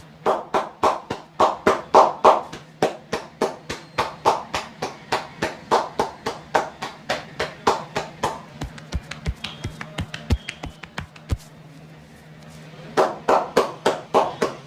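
Rapid rhythmic hand slaps of a percussive massage, about four to five strikes a second, stopping for about a second and a half near the end and then starting again.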